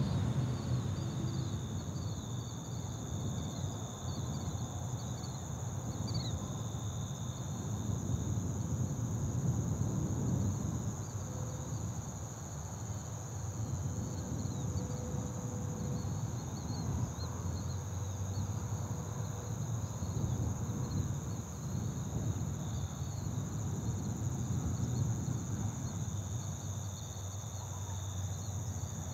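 Steady chorus of night insects, crickets, in a continuous high-pitched trill over a low background rumble.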